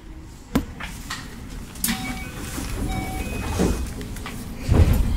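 Interior noise of a Keio 8000 series commuter train car: a low running rumble with a sharp clunk about half a second in, another about two seconds in, and a heavy low thump near the end.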